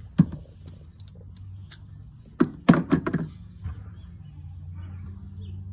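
Metal hand tools clinking and rattling: a ratchet, extension and spark plug socket knocking against metal in the engine bay, with scattered clicks and a cluster of loud clanks about two and a half to three seconds in. A low steady hum sits underneath in the second half.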